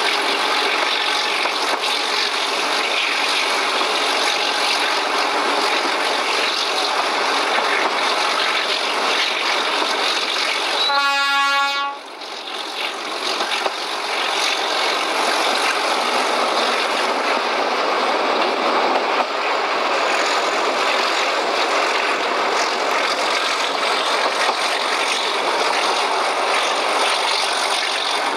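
Alco RS-8 diesel locomotive hauling a train, heard from an open coach window: a steady rush of engine, wheels and wind. Near the middle the locomotive gives a single horn blast of about a second on one note.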